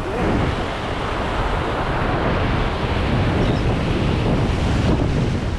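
Ocean surf washing against jetty rocks, a steady rushing noise, with wind buffeting the microphone.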